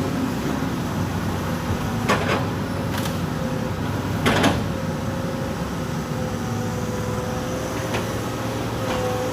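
Hydraulic excavator running steadily, its engine under a wavering hydraulic whine, with a few sharp clunks as logs are moved, the loudest about four seconds in.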